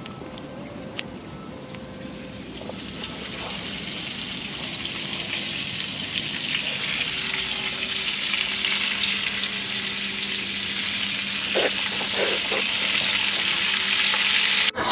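Breaded chicken frying in hot grease, sizzling, with the sizzle growing louder a few seconds in and stopping abruptly near the end.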